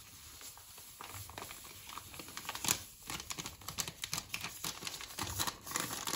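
Paper sachet of powdered whipped-cream mix crinkling and rustling as it is shaken and squeezed to empty the powder into a glass bowl, in irregular crackles starting about a second in.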